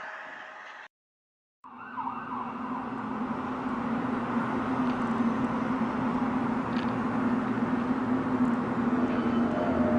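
A sound fades and cuts off, and after a moment of dead silence a steady droning hum comes in, with a held low tone over a rough wash of noise, slowly growing louder. It is one of the unexplained 'mystery sky sounds' recorded in January 2012.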